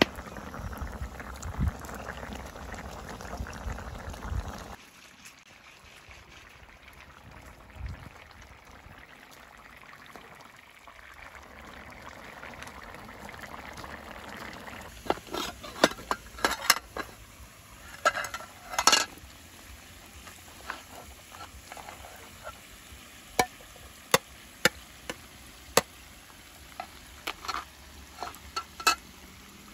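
A stew bubbling in a pan over a wood fire while a spoon stirs it for the first few seconds. Then a quieter stretch, and from about halfway on a metal spoon clinks and scrapes against a metal pot and tray in short clusters, as cooked rice is dished out.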